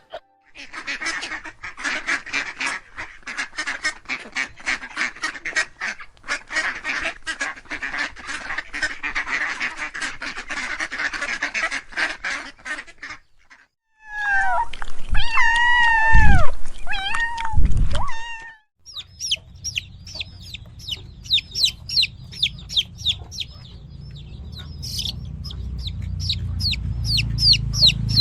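Farm birds calling. First comes a dense, rapid chatter of quacking calls. About 14 seconds in, a few loud, wavering honk-like calls take over, and in the last third there is a quick run of high peeps.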